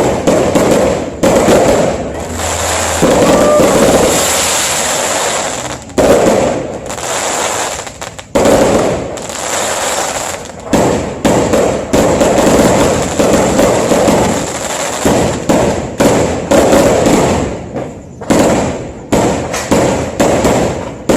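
Many fireworks going off in quick succession: a dense, continuous barrage of loud bangs and crackles, several a second, with no let-up.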